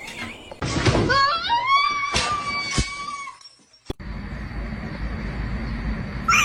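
A cat gives one long, drawn-out meow that rises and then holds steady for about two seconds, with a few sharp clicks. After that comes a steady low background noise.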